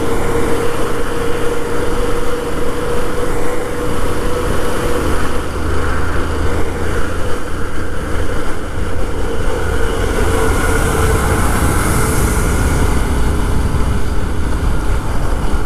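Yamaha FZ motorcycle running steadily at road speed, with constant wind rush over the microphone.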